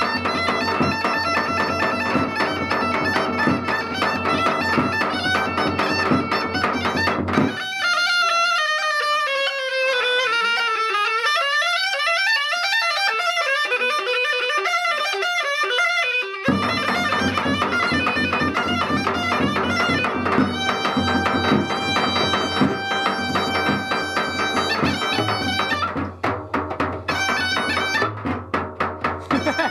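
Bulgarian gaida bagpipe playing a folk tune over its steady drone, with a tapan bass drum beaten with a stick and a small frame drum. About a quarter of the way in, the low drone and drumming drop out for about nine seconds, leaving only a wavering, sliding melody line, then the full sound comes back.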